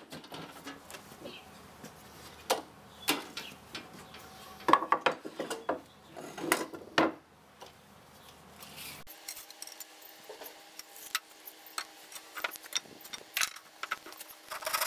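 Irregular knocks and clatter of timber and hand tools being moved and set down on a wooden workbench, with a cluster of louder thumps midway.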